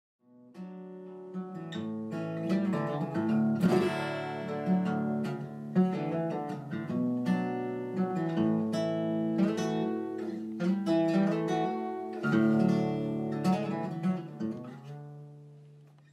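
Acoustic guitar played solo, chords struck and left ringing, dying away near the end.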